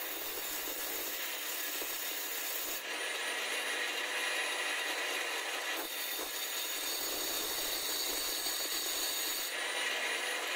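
Angle grinder in a bench stand running steadily while the tip of a 9 mm twist drill bit, held in a wooden jig, is ground against its disc. The grinding noise changes a few times, and near the end the bit comes off the disc and the grinder spins free.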